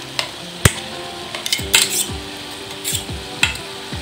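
A few sharp metal clinks and knocks as a steel cup of ground masala paste is scraped out against the rim of an aluminium kadai, the loudest about two-thirds of a second in. Background music plays throughout.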